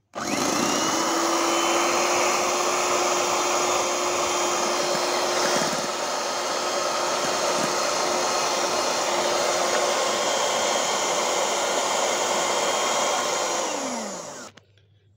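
Electric hand mixer beating cake batter: the motor spins up as it is switched on, whirs steadily for about fourteen seconds, then is switched off and winds down with a falling pitch near the end.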